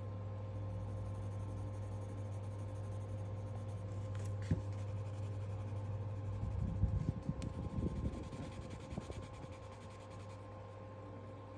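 Pencil scratching on sketchbook paper as colour is shaded in, in a run of strokes a little past the middle that is the loudest part, over a steady low hum.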